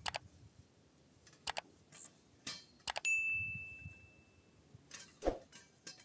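Like-and-subscribe animation sound effects: a few sharp mouse clicks, then a notification bell ding about three seconds in that rings out and fades over about a second and a half. A single knock follows a little after five seconds.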